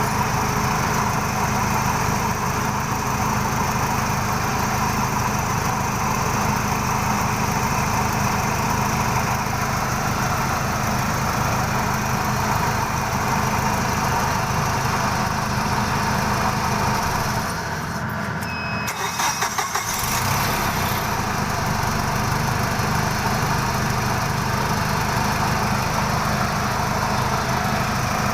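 Gasoline engine of an H-20 series forklift idling steadily. About two-thirds of the way through, its low hum drops out for a couple of seconds with a few clicks, then it runs again.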